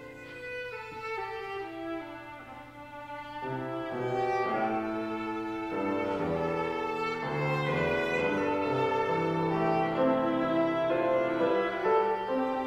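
Viola and piano playing an old Scottish Border melody, the viola in long held notes over the piano. Softer at first, then louder from about four seconds in.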